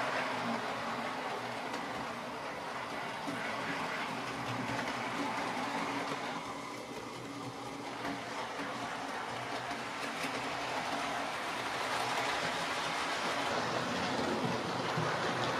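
OO gauge model train running on the track: the Hornby 9F model locomotive's motor humming and the metal wheels of the loco and coaches rolling over the rails. It grows louder near the end as the train comes past close by.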